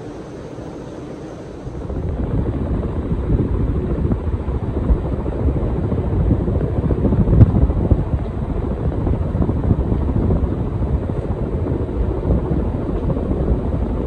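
Casablanca Spirit of Saturn ceiling fan running with four blades. A little under two seconds in, the sound jumps louder into a steady, low, gusty rush, the blades' airflow buffeting the microphone.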